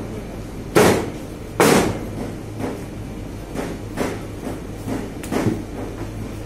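Sharp knocks and thuds from meat and a knife on a butcher's cutting table: two loud ones about a second apart near the start, then lighter, irregular ones. A steady low hum runs underneath.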